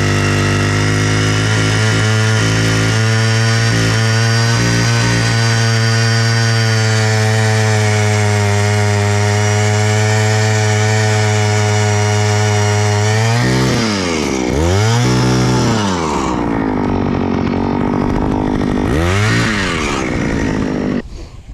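Gas-powered ice auger engine running steadily, its pitch dipping and recovering twice as it is throttled back and opened up again, then shutting off near the end.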